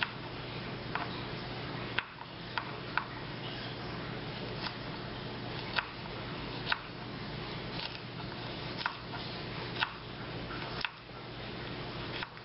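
A small paring knife slicing garlic cloves on a wooden cutting board: sharp, irregular taps as the blade comes down on the board, roughly one a second, over a steady hiss.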